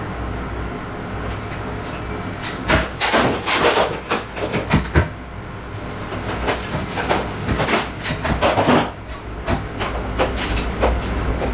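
Plastic parts of a Daikin wall-mounted air conditioner's indoor unit clicking, knocking and rattling as they are taken apart by hand, in two busy spells of clatter. A steady low hum runs underneath.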